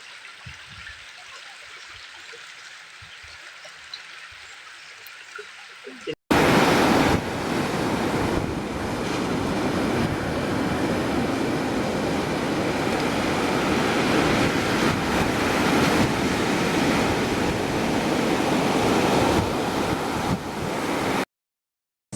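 Big ocean swell breaking on a beach: a loud, steady rush of surf that starts suddenly about six seconds in, after faint hiss, and cuts off into silence about a second before the end.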